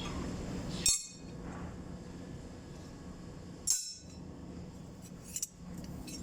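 Metal clinks as tools and parts are handled: two sharp clinks, about one second and nearly four seconds in, and a couple of lighter taps near the end, over a steady low hum.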